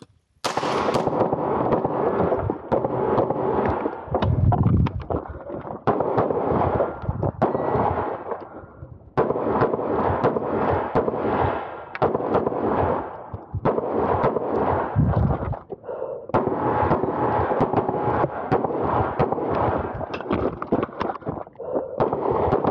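CZ P-10 C pistol firing quick strings of shots as a shooter works through a practical-shooting stage, each shot ringing on into the next. The strings break off briefly about nine and sixteen seconds in.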